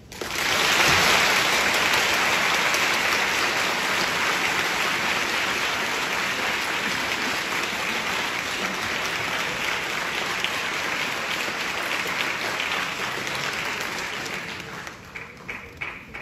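Audience applauding. It starts abruptly, holds steady for about fifteen seconds, then dies down to a few scattered claps near the end.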